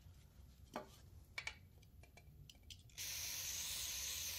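Aerosol brake cleaner sprayed onto a steel thread tap in one steady hiss, starting about three seconds in and lasting about a second and a half, washing metal chips out of the tap's flutes. A couple of faint clicks come before it.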